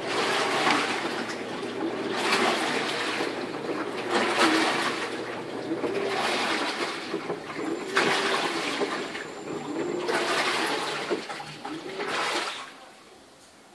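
Washing machine mid-wash, water swishing in surges about every two seconds, each with a motor whine that rises and falls. It falls quiet shortly before the end.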